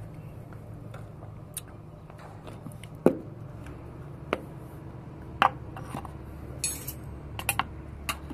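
Metal hand tools and brake-servo parts clinking and knocking, a handful of sharp separate strikes and a short rattle, over a steady low hum.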